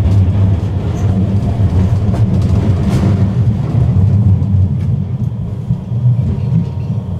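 Tram running along the track, heard from on board: a steady low rumble of wheels on rails with a few faint clicks, the sharpest about three seconds in.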